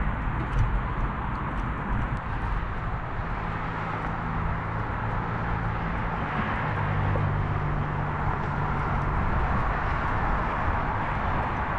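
Steady rushing wind and tyre noise from a moving bicycle, picked up by a handlebar-mounted GoPro Hero10 with no wind cover, over a low hum. A few rattling clicks come in the first couple of seconds.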